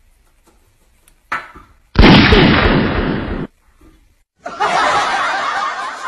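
A loud gunshot bang sound effect, one long blast about two seconds in that cuts off sharply after about a second and a half. It is followed about four and a half seconds in by a steady busy sound that runs on.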